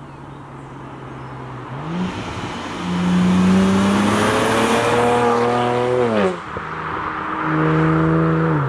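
BMW 335i's N54 twin-turbo straight-six engine accelerating, its pitch climbing as the revs rise. The pitch drops sharply about six seconds in, rises again, and drops once more near the end.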